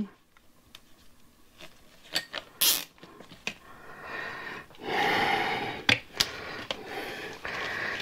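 Scattered clicks and scrapes as a Tannus airless bicycle tire is forced onto its rim with zip ties and a mounting tool, with a longer rasping sound, about a second long, some five seconds in.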